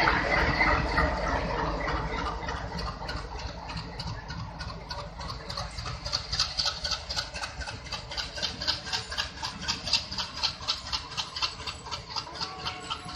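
Passenger train coaches rolling past a station platform, their wheels clicking rhythmically over the rail joints at about four clicks a second, the clicks growing more distinct from about halfway through.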